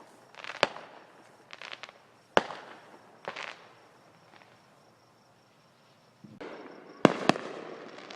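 Fireworks going off: a few sharp bangs and crackles in the first few seconds, a short lull, then a rising rush followed by two loud bangs close together near the end.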